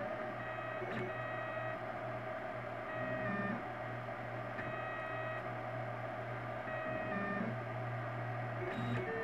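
Printrbot LC 3D printer running a print: its stepper motors whine in steady tones that jump to new pitches every second or so as the head changes moves, over a constant low hum.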